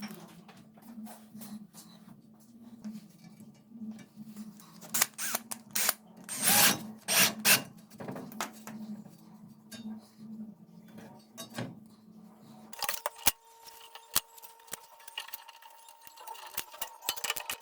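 Steady low machine hum with irregular clicks, knocks and rattles over it, loudest about five to eight seconds in; the hum cuts off suddenly about thirteen seconds in, leaving faint ticks and a thin steady tone.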